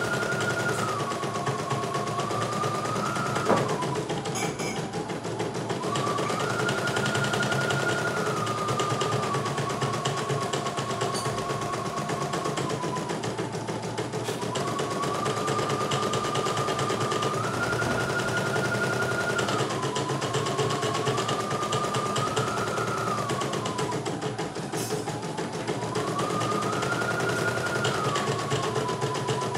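CNY E900 embroidery machine stitching a design: rapid needle clatter with a motor whine that rises and falls in pitch every few seconds. There is a single sharp click about three and a half seconds in.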